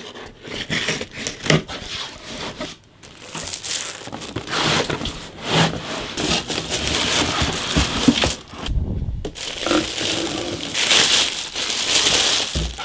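Cardboard packaging being handled: scissors cutting the box open, then cardboard flaps scraping and rustling, and a plastic bag crinkling around the speaker as it is lifted out.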